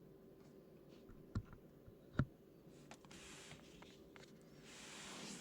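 Quiet handling sounds of an aftermarket stainless-steel and rubber brake pedal cover being fitted onto a car's brake pedal: two light taps, then soft rubbing that grows near the end.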